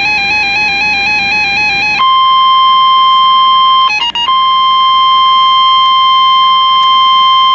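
Electronic weather-radio alert tones. First a warbling tone steps between two pitches about four times a second. About two seconds in, the steady 1050 Hz NOAA Weather Radio warning alarm tone takes over, breaking off briefly near the middle. This tone signals that a warning broadcast, here a severe thunderstorm warning, is about to follow.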